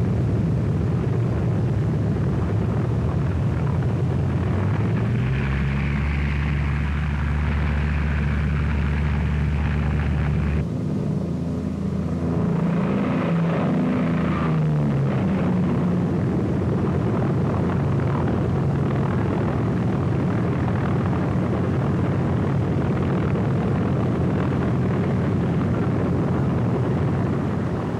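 Piston engines of WWII fighter planes running up and taking off: a steady rumbling drone. The engine note climbs about five seconds in, cuts off abruptly a little after ten seconds, climbs and bends again, then settles into a steady roar.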